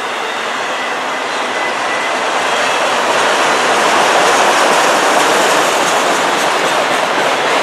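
Freight train autorack cars rolling past close by: a steady rushing of steel wheels on rail that grows a little louder about three seconds in. A faint high wheel squeal fades out in the first couple of seconds.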